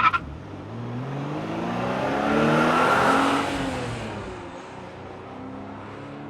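A car engine revving as it accelerates past, its note rising and swelling to its loudest about three seconds in, then falling and fading away.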